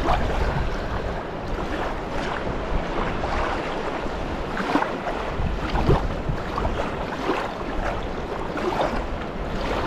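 Steady noise of wind on the microphone and river water lapping at a sandy shore, with a few faint short rustles.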